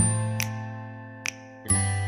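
Background ukulele music: a plucked chord at the start and another about 1.7 seconds later, each fading away, with light percussive taps between them.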